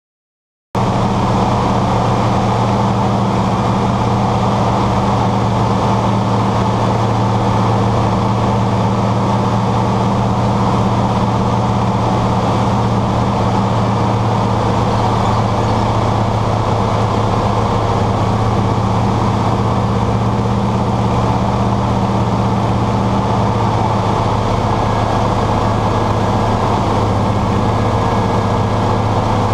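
Vultee BT-13A's nine-cylinder Pratt & Whitney R-985 radial engine and propeller droning steadily in flight, heard inside the cockpit. The sound cuts in abruptly under a second in, and its tone shifts slightly about 23 seconds in.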